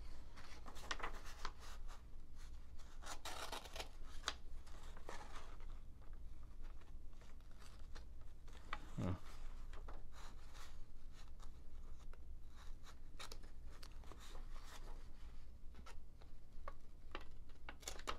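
Wood-carving knife blade pushed and drawn through the edge of a sheet of printer paper: intermittent faint scratching and paper rustling as the edge catches and tears at the paper rather than slicing cleanly, a sign that the edge is not yet sharp and needs work.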